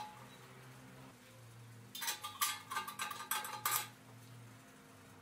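Stainless steel expanded-metal grate clinking and rattling against the steel box of a small charcoal grill as it is set into place: a quick run of metallic clinks lasting about two seconds, starting about two seconds in.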